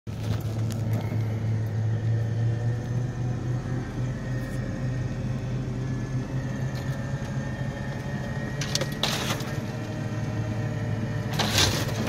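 A vehicle's engine running, heard from inside the cab as a steady low hum. There are two brief noises, about nine seconds in and near the end, and the hum stops just before the end.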